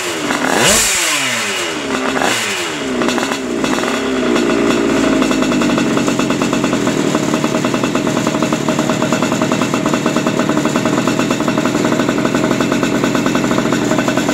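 TKM 135cc reed-valve two-stroke kart engine being run in for piston break-in. The revs fall away in the first few seconds after a couple of blips, then it settles into a steady fast idle.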